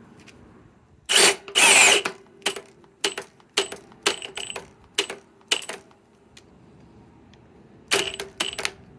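Milwaukee M18 Gen 4 cordless hammer drill driver driving an 8-inch lag screw into wood. It gives two longer runs, then short bursts about two a second, each with a steady motor whine. It pauses for a couple of seconds, then starts the bursts again near the end.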